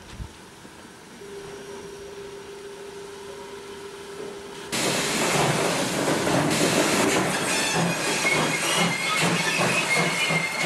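A faint steady hum while the turntable turns steam locomotive 50 3648. About five seconds in, the sound cuts to a much louder steam locomotive on the move, with hissing steam, squealing wheels and rail clatter.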